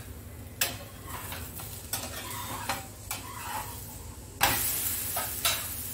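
Metal spatula clicking and scraping against a nonstick tawa a few times, then about four and a half seconds in a sudden loud sizzle as the aloo paratha is flipped onto the hot, oiled pan and starts frying.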